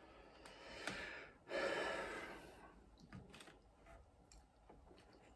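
A man breathing out heavily twice through nose and mouth, sigh-like, the second breath louder and longer. Light clicks of a fork against the aluminium foil tray follow as he takes a forkful of pasta bake.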